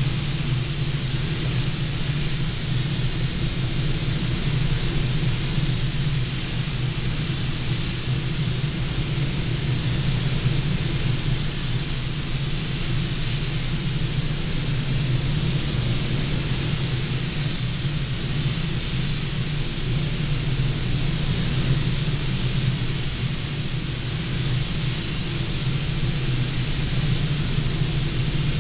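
Steady hiss of a compressed-air gravity-feed spray gun spraying paint onto a car bonnet, running without a break, over a steady low hum.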